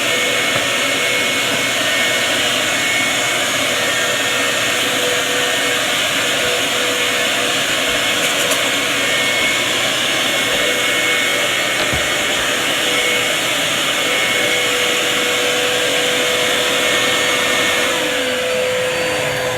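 A shop vac and a Dirt Devil upright vacuum running together: a loud, steady motor whine and rush of air. Near the end they are switched off and the pitch falls as the motors spin down.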